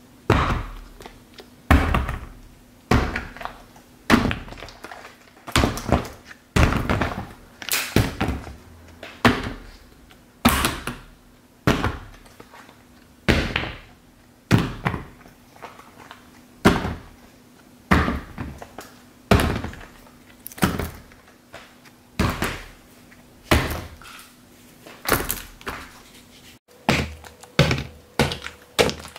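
Silicone pop-it fidget toys dropped one after another onto a leather sofa cushion, each landing with a thunk, about one a second; near the end the landings come closer together. A faint steady hum sits underneath and stops shortly before the end.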